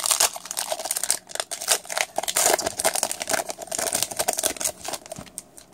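Foil trading card pack wrapper being torn open and crinkled by hand: a dense, rapid crackling of sharp crinkles that dies down about five seconds in.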